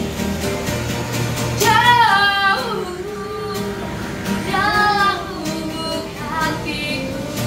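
Female street singer singing with wavering, vibrato-laden held notes over instrumental accompaniment. Two long phrases stand out, about two seconds in and about five seconds in.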